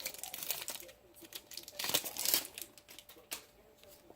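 Trading card pack wrapper crinkling and cards being handled, in scattered short rustles and clicks.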